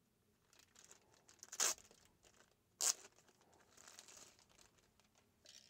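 Clear plastic bag crinkling and rustling as it is worked off a handheld multimeter, with two sharper crackles about a second and a half and three seconds in.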